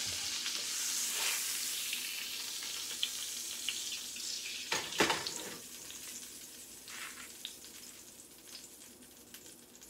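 Salmon sizzling in a hot skillet, the hiss fading as the fish is lifted out. A spatula clicks against the pan, with one sharp knock about five seconds in.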